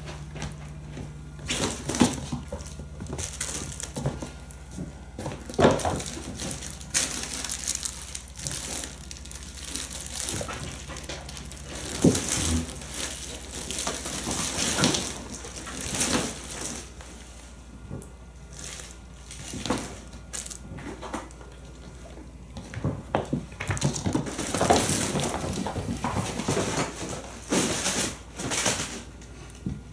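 Kittens scrambling through and pouncing on a fabric play tunnel: irregular rustling and crinkling, with scattered thumps and scrabbling of paws.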